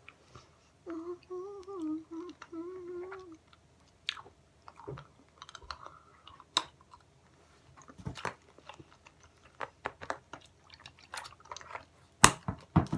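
A girl hums with her mouth closed for a few seconds while sucking a lemon sherbet boiled sweet, then chews it, with scattered short clicks and crunches of the hard sweet. The loudest sharp crunch comes near the end.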